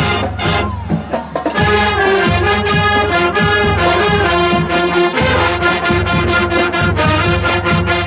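Marching band playing in the stands: brass, saxophones, flutes and sousaphones holding loud sustained chords with sharp rhythmic hits. The sound drops briefly about a second in, then the full band comes back in.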